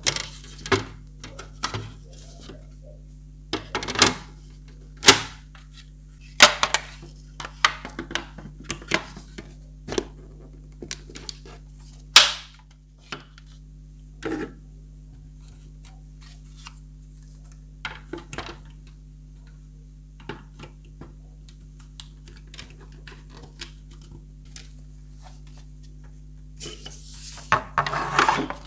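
Parts of a plastic tie-dye toy kit being handled: irregular clicks, taps and knocks, the loudest about 12 seconds in, and a burst of rustling near the end.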